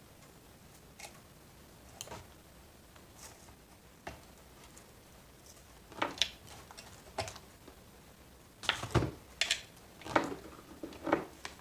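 Saw chain of a Shindaiwa 490 chainsaw clinking and rattling as it is lifted off the guide bar by hand: a few scattered clicks at first, then bursts of metallic rattling in the second half with one heavier knock.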